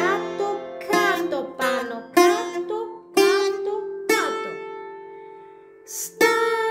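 Bouzouki picked in a run of single melody notes from the song, in the Sabah mode. About four seconds in, one note is left to ring and fades for nearly two seconds before the next note is struck.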